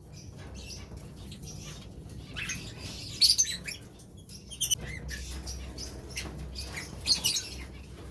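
Pet lovebirds chirping in short high-pitched bursts, with some wing flapping.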